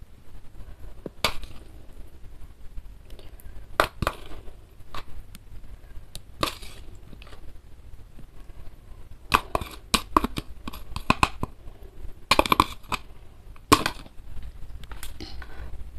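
A metal spoon scraping and tapping inside a clear plastic tub as chunky sambal with petai beans is poured and scraped out onto fried fish. It comes as separate clicks, scrapes and wet plops, busiest about two-thirds of the way through.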